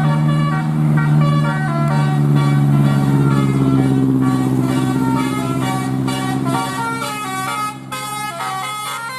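Bus telolet horn of the Basuri type playing a tune of quickly changing notes over a steady low tone, with the notes turning into rapid repeated toots near the end.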